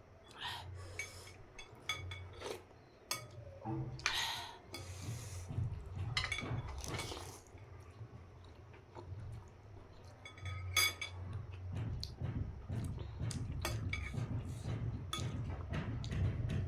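Eating noodle soup: a utensil clinking against a bowl with scattered short clicks, between chewing and mouth sounds.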